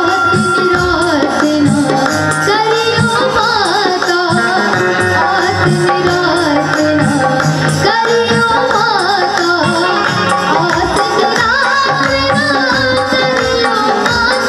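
Indian devotional folk music: an ornamented sung melody over a steady hand-drum beat.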